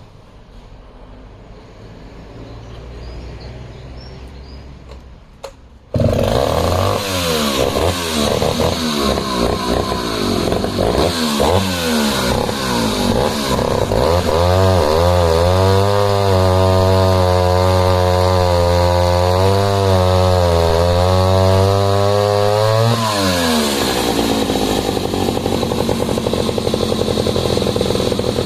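Jonsered XF 110 cc vintage two-stroke chainsaw engine running loud after a quieter start, coming in suddenly about six seconds in. The revs surge unevenly, then hold high and steady for several seconds before dropping, and it runs on roughly afterwards.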